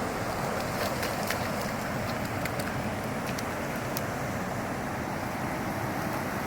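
Creek water rushing steadily over rocks, with a few faint ticks in the first half.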